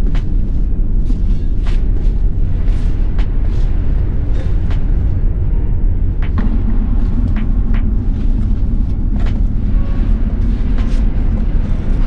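Boots stepping down the steel rungs of a ship's spiral ladder, giving scattered clanks and knocks over a loud, steady low rumble.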